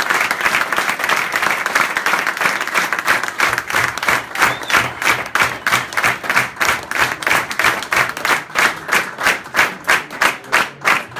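Audience applauding. The dense, scattered clapping gradually falls into rhythmic clapping in unison, about three to four claps a second.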